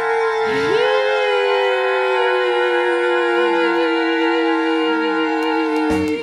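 Electronic keyboard synthesizer playing a held chord while one tone swoops up about half a second in and then slides slowly and steadily down in pitch, a falling sound effect for the jump. It cuts off abruptly just before the end.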